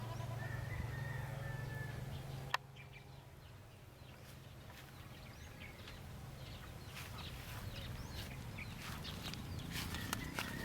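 Farmyard chickens clucking, with a short high call in the first seconds. A single sharp click about two and a half seconds in, after which the background is quieter.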